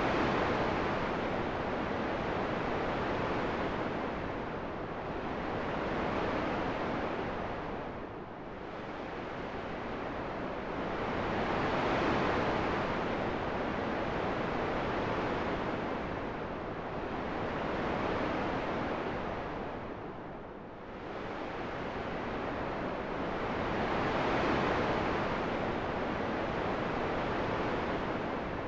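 Wind blowing in slow gusts, a whooshing rush that swells and fades about every ten to twelve seconds, dropping lowest twice.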